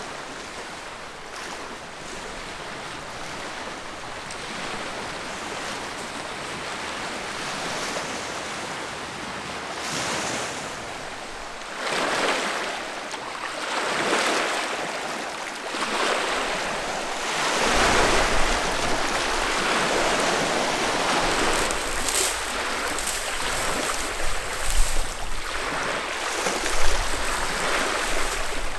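Small lake waves washing and breaking against a rocky shore, surging and falling back every couple of seconds, with wind buffeting the microphone in the second half.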